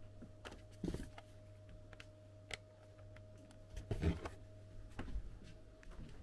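Quiet shop interior: a steady low hum with a faint thin steady tone under it, and scattered soft knocks and rustles, the loudest cluster about four seconds in.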